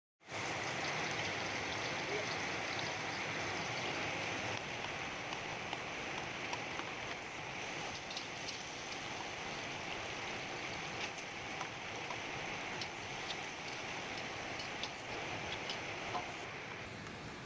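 Food sizzling in a hot pan: a steady hiss with scattered small pops and crackles.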